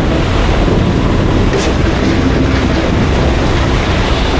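Steady rush of wind over the microphone of a Yamaha R15 V3 sport bike ridden at speed, its 155 cc single-cylinder engine running underneath.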